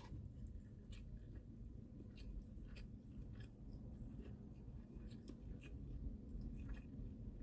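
Soft chewing of egg-roll kimbap, with scattered small clicks as wooden chopsticks pick a slice from a paper bowl, over a faint steady low hum.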